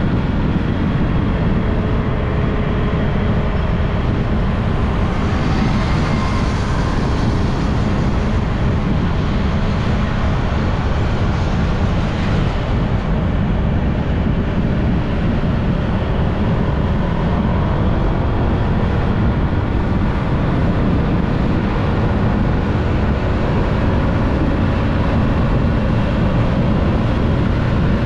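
A motorbike riding along: steady wind noise buffeting the camera microphone, with the engine running underneath.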